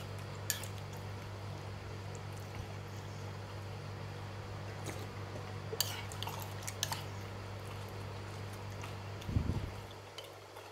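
Metal spoon and fork clinking and scraping against a ceramic soup bowl, a few sharp clinks, over a steady low hum; a dull low thump near the end.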